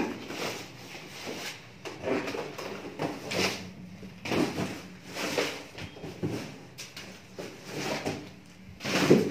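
Folded vinyl air bed and its plastic wrapping rustling and crinkling as they are handled and unfolded, in a string of irregular bursts, the loudest one near the end.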